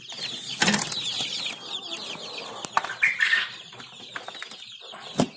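Many chicks peeping, a dense run of short high chirps that fall in pitch. A few knocks and rustles are mixed in, the loudest about half a second in and another near the end.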